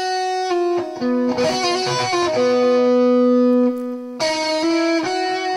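Electric guitar playing a bluesy single-note phrase over the B7 of a turnaround in E: notes sliding down between neighbouring pitches, with one note held and ringing for about two seconds in the middle.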